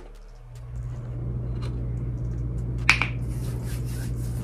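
A steady low hum that swells in over the first second, with a few faint clicks and one sharper click about three seconds in.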